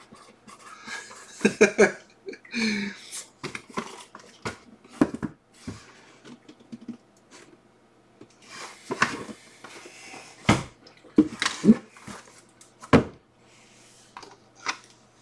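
Cardboard boxes being handled and set down on a tabletop: scattered knocks, taps and rubs, with a few sharper knocks in the second half.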